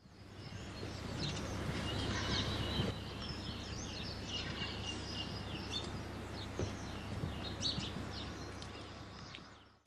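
Birds chirping and singing over a steady low background hum, fading in at the start and fading out at the end.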